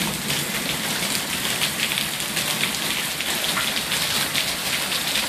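Heavy rain falling steadily: a dense, even hiss scattered with sharp ticks of drops striking close by.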